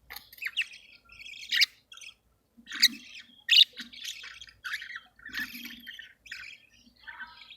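Budgerigars chattering: a busy warble of chirps, broken by loud, sharp squawking chirps about one and a half, three and three and a half seconds in.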